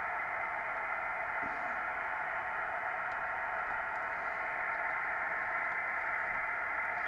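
Steady receiver hiss from a Kenwood TS-700SP 2-metre all-mode transceiver's speaker, an even white noise confined to a narrow band of middle pitches, with a couple of faint clicks from the test probe.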